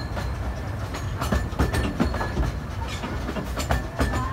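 Narrow-gauge steam train running, heard from aboard its carriage: a steady low rumble with irregular clicks and knocks from the wheels on the track.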